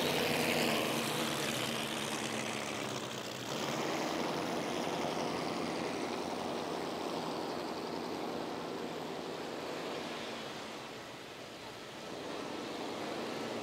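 Motorboat engines running, with the rush of water from their wash. The sound swells about three seconds in and dips briefly near the end.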